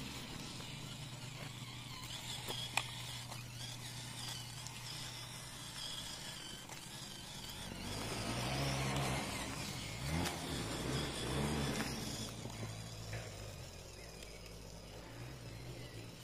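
Electric motor and gears of an FMS FCX24 Power Wagon 1/24-scale RC crawler running with a steady low hum. Through the middle it grows louder, and its pitch rises and falls in several quick surges before settling back to the hum.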